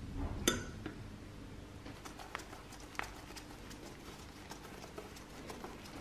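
Screwdriver driving a screw through the coffee grinder's metal mounting flange into a wooden backboard: a sharp click about half a second in, then a run of light, irregular ticks.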